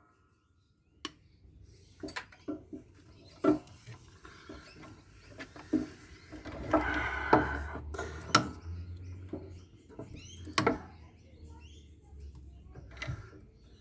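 Hand tools and loose metal parts knocking and clicking while a solar inverter is taken apart: irregular small clicks and clatters, with a longer, busier stretch of handling about six to eight seconds in.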